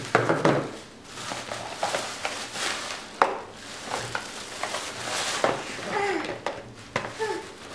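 Thin plastic shopping bag rustling and crinkling as packages are pulled out of it, with a few light knocks of cardboard candy boxes being handled on a table.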